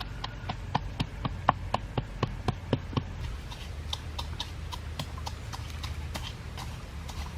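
Wet mouth smacking while chewing food, about three to four sharp smacks a second that grow fainter and sparser about three seconds in.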